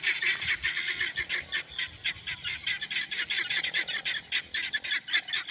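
Birds chattering: a rapid, unbroken run of short, high chirps, several a second.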